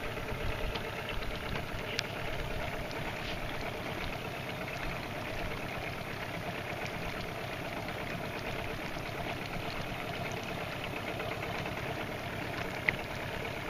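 Boat's outboard motor idling steadily, with one short sharp click near the end.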